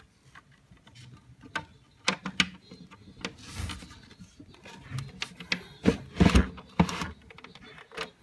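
Irregular clicks, taps and rubbing as a hand handles a white plastic pivot fitting of a tilt-out shoe compartment while fitting a small screw and nut into it. The loudest knocks come in a cluster about six seconds in.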